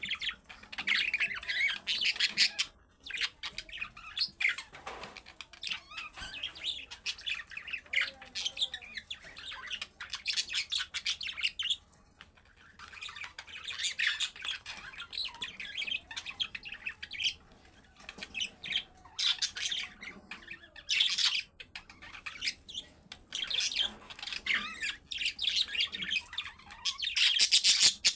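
Budgerigars chattering and warbling in rapid, high-pitched bursts of a few seconds each, with brief lulls between them.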